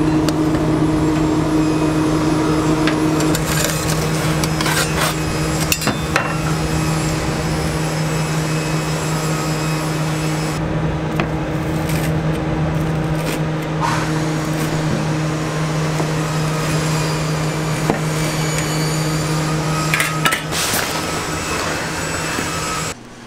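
Steady low machine hum from a pizza truck's conveyor oven and fans, with sharp knocks and clanks as a metal pizza pan and tongs are handled and a rocker pizza cutter chops down through the crust onto the cutting board. The hum cuts off suddenly near the end.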